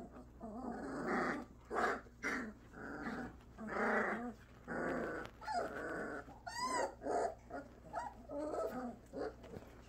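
Three-week-old Bordoodle puppies growling at each other in play, a string of short, rough puppy growls with one higher-pitched cry about six and a half seconds in. These are the first growls of puppies just learning to growl and play.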